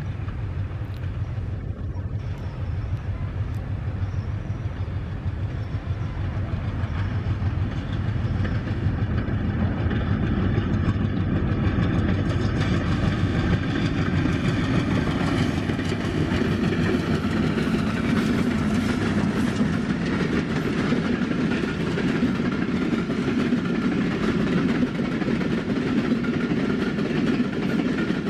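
Rupsha Express, a broad-gauge passenger train of PT INKA coaches hauled by an ALCO WDM-2 diesel locomotive, running past. It grows louder over the first dozen seconds, then holds steady.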